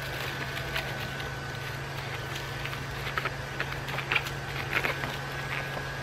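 Aluminum mylar crinkling and crackling in a few short sharp bursts of sound as it is pressed and smoothed by hand over a foam board, mostly about three to five seconds in. A steady low hum runs underneath throughout.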